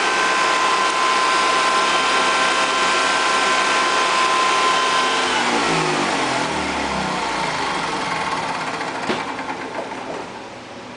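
Honda EV6010 generator's engine running steadily at speed, then shut off about five seconds in, its pitch falling as it winds down to a stop. This is a test run after a no-start repair.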